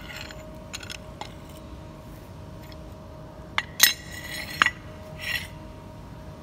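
Rusty forged steel C-clamp being handled and set down on a concrete floor: a few sharp metal clanks with a short ring, the loudest about four seconds in, and light scraping of steel on concrete.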